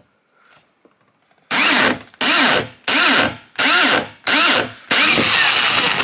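Cordless drill driving a hole saw into a plastic freshwater tank. The motor is run in five short bursts, its whine rising and falling each time, then held on for a longer run from about five seconds in.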